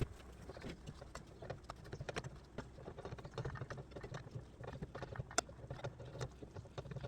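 Cream sauce simmering in a skillet, popping and spattering in irregular small clicks over a low steady hum.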